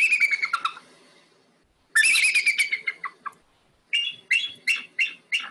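Recording of a bald eagle calling. It gives three bursts of high, thin chattering whistles: the first two are quick runs that fall in pitch, and the last, starting about four seconds in, is a string of separate piping notes.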